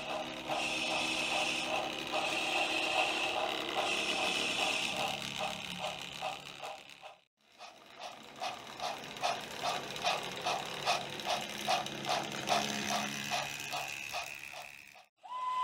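Model train running on a layout, with an even rhythmic clicking of about three to four clicks a second over a steady mechanical hum, broken once by a short gap about seven seconds in.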